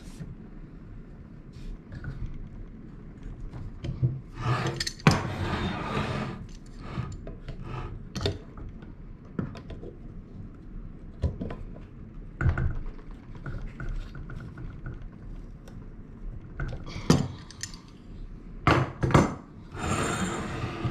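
Steel spanner wrench clinking, knocking and scraping against the propeller-end cap of a kayak pedal drive as the cap is tightened down. The sounds come irregularly.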